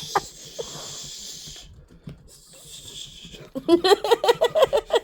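Hair dryer blowing with a steady hiss, which cuts off after about a second and a half and comes back faintly for a moment. In the last second or so a person starts laughing.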